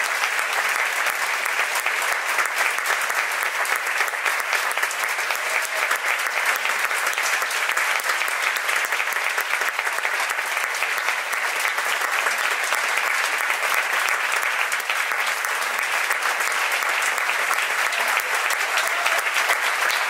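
Audience applauding steadily: dense, continuous clapping that neither swells nor fades.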